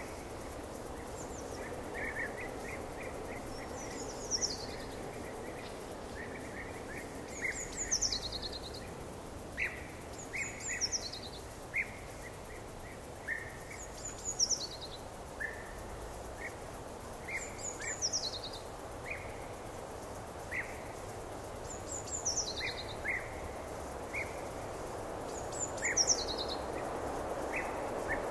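Songbirds singing over a steady outdoor background hiss. A high, falling song phrase repeats every three to four seconds, with shorter, lower chirps between.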